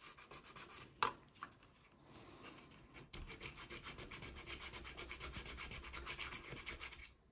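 Sandpaper rubbing on a plastic model kit part in quick back-and-forth strokes, knocking the surface down smooth. The strokes get steadier and louder about three seconds in, with a light tap about a second in.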